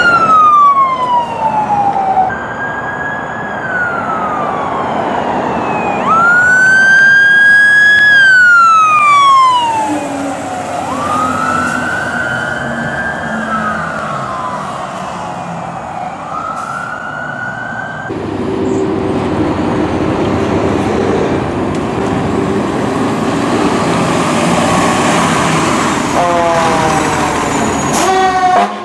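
Emergency-vehicle siren on a wail: each sweep climbs quickly, holds high, then slides down over a couple of seconds, repeating for about the first eighteen seconds. After that comes a loud steady rumble of heavy engine and road noise, with a brief horn-like blast just before the end.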